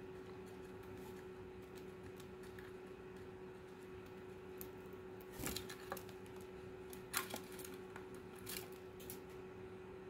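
Cockatiels' beaks clicking on seed and the plastic feeder tray, with a brief flutter and louder knocks about halfway as a second cockatiel lands on the tray, then a few more sharp clicks. A steady faint hum underlies it.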